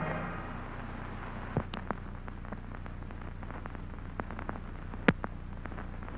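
Orchestral music dies away at the very start, leaving the steady hiss and low hum of an old recording's soundtrack with scattered clicks and pops, the loudest about one and a half and five seconds in.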